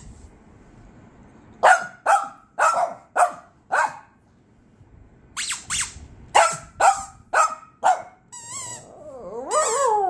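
Small Shih Tzu dogs barking in sharp single barks, a run of five and then a run of six, about half a second apart. Near the end comes a high wavering cry, then a long falling whine.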